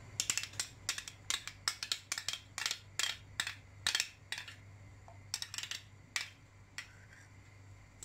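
A quick, irregular run of light clicks and taps, about three or four a second, from a kitchen utensil knocking and scraping against a container as condensed milk is added. The clicks thin out and stop about seven seconds in.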